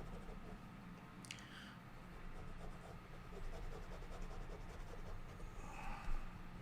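Faint scratching of drawing strokes, with the steady hum of an electric fan underneath. A brief high squeak falls in pitch about a second in.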